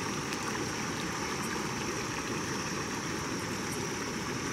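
Steady rush of water from a creek running full after heavy rain, with a thin, steady high tone above it.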